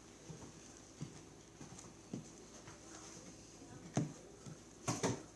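Soft, irregular sticky clicks and taps of slime being worked by hand in a bowl, with a sharper tap about four seconds in and a few more near the end.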